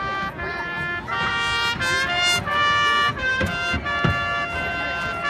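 Marching band playing, the brass holding sustained chords that change every second or so, with a few low thuds a little past the middle.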